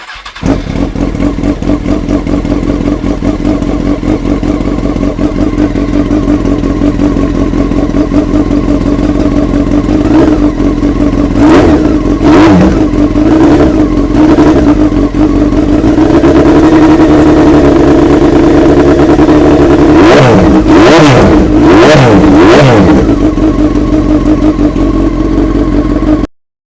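2002 Honda CBR900RR Fireblade's inline-four engine idling through its exhaust, blipped several times in quick succession around the middle and again three or four times near the end, each rev rising and falling quickly. The sound stops abruptly.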